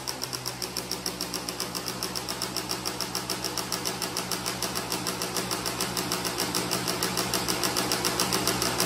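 1991 Kawasaki KDX200's two-stroke single-cylinder engine idling on its own after being revved, with an even, regular pulsing beat several times a second.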